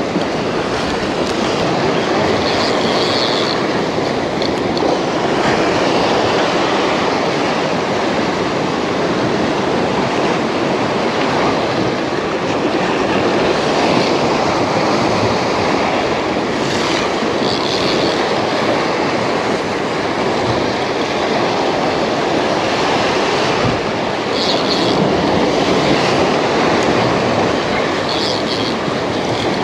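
Steady rush of surf breaking over breakwall rocks, mixed with a spinning reel being wound against a hooked stingray. A few brief high-pitched squeaks come through about three seconds in, around the middle, and near the end.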